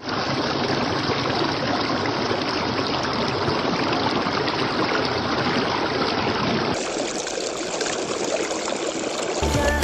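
Small stream of water splashing steadily over rocks. About seven seconds in the sound turns thinner, with less low rumble.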